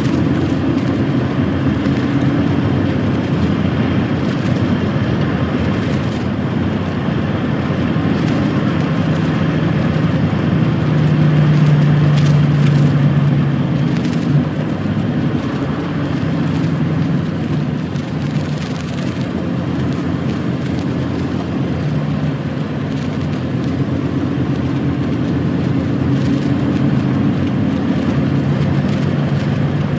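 Lorry's diesel engine running while under way, heard with steady road and tyre noise. The engine note changes pitch a few times as its speed changes.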